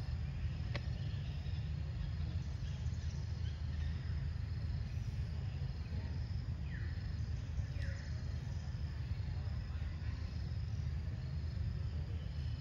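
Outdoor ambience: a steady high drone of insects over a constant low rumble. Two short falling calls come about a second apart a little past the middle, with a faint click near the start.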